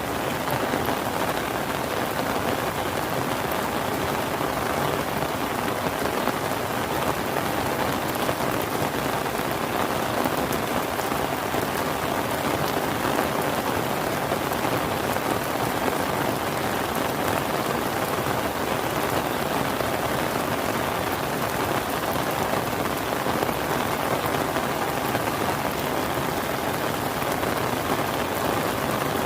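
Rain falling steadily, an even, dense patter with no let-up.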